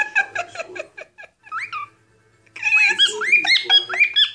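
Cockatiel chattering in quick short chirps, then, after a brief pause, a fast run of rising whistled notes: its typical cockatiel song.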